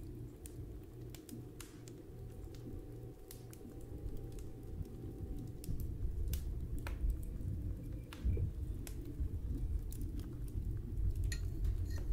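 Puffing on a Butz-Choquin briar tobacco pipe: scattered small clicks and pops from the lips and stem, a little busier in the second half.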